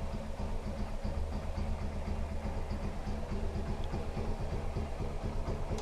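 Honda CG 150 single-cylinder four-stroke engine idling steadily through an aftermarket Roncar Turbo exhaust, with an even low pulse.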